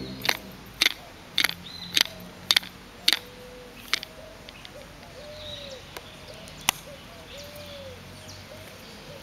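Clear acrylic salt shaker shaken hard over a plate, a sharp click with each shake about twice a second for some three seconds, then a few single clicks further on. Doves coo repeatedly in the background.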